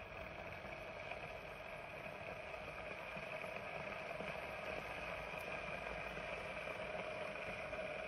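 SAKI electric Turkish coffee maker brewing: a steady hum and hiss from the pot heating, slowly growing louder as the coffee comes up toward the foam.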